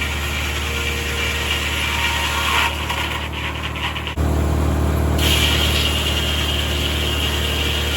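Tractor engine driving a 1950 Corley circular sawmill, running steadily. About three seconds in the higher hiss falls away, and a second later the low drone suddenly gets louder.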